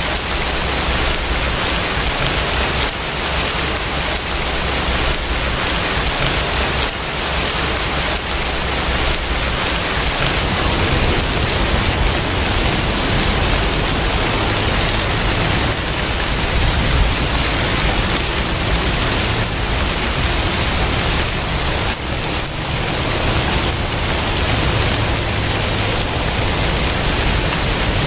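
Steady rainfall, an even hiss of rain that runs without a break.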